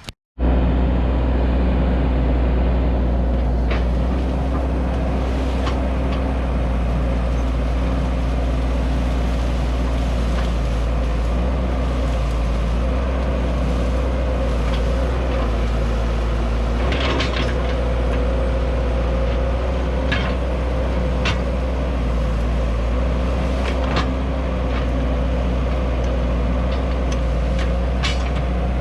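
1993 Cat E120B excavator's diesel engine running steadily while working, with about eight sharp metallic clanks and knocks scattered over it.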